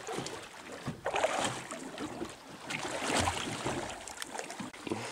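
Choppy seawater sloshing and splashing against the side of a small boat, with wind buffeting the microphone. It gets louder about a second in and again around three seconds in.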